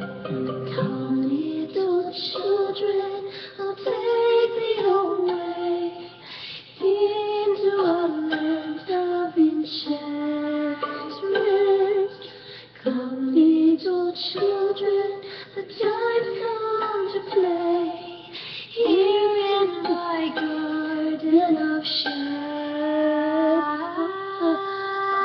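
A voice singing a song over musical backing, with a long held note near the end.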